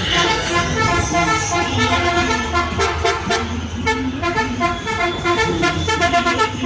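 Musical multi-tone car horn (a Turkish 'Arab horn') run by an electronic horn controller, playing a tune of short notes in quick succession.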